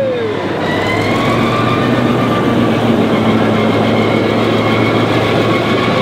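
Caterpillar D9H bulldozer's diesel engine running steadily and loud, with a faint high whine over the engine note.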